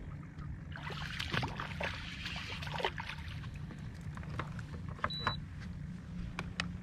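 A hooked crappie is fought and swung into a fishing boat: splashing and rod-and-line commotion for about two seconds, then a few light clicks and knocks, all over a steady low hum. There is a short high beep about five seconds in.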